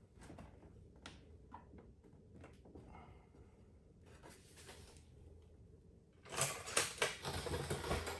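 Hand work on an ATV's body panels and footwell: light clicks and taps, then about six seconds in a louder stretch of clattering and scraping.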